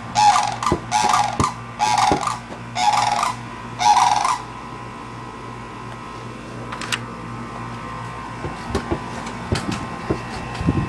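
Sandhill cranes calling loudly: about five repeated calls, roughly one a second, that stop about four seconds in, leaving a quieter steady hum with a few faint ticks.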